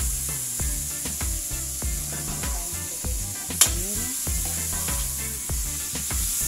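Metal spatula scraping and tapping around a metal wok as tomatoes, garlic and onion sauté in hot oil with a steady sizzle, with one sharp clack of the spatula on the pan a little past halfway. Background music with low bass notes plays underneath.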